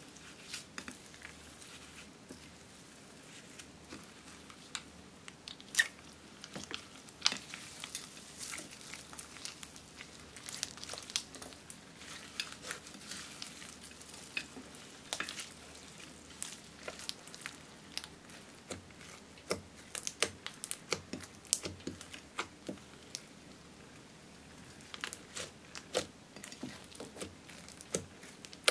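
White slime loaded with foam beads and crushed pressed makeup being kneaded and squeezed by hand. It makes irregular crunchy crackling and squishing, in quick clusters of sharp crackles with short lulls between.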